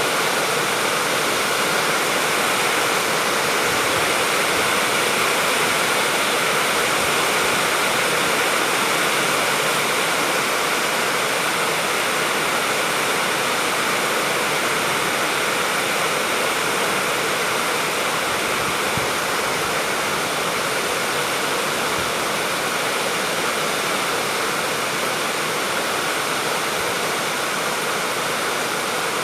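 Steady, even rain falling, a continuous hiss without distinct drops or thunder.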